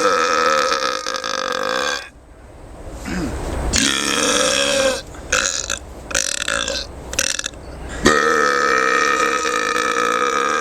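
Men belching loudly on purpose: a long drawn-out burp that ends about two seconds in, a shorter one about four seconds in, a few brief sputters, then a long steady burp from about eight seconds on.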